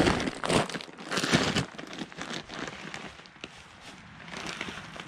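Large plastic sack crinkling and rustling as it is handled and hoisted up onto a shoulder. The rustling is loudest in the first second and a half, then drops to lighter rustles and small clicks.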